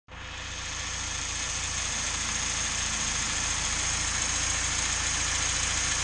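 UAZ Patriot engine idling steadily with the bonnet open, still cold and warming up.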